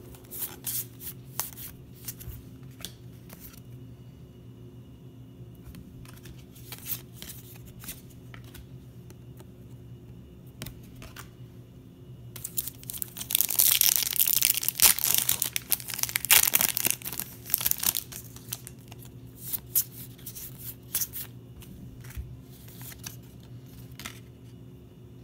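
Foil trading-card pack wrapper being torn open and crinkled, the loudest stretch lasting several seconds about halfway through. Before and after it come scattered light clicks and rustles of cards being handled.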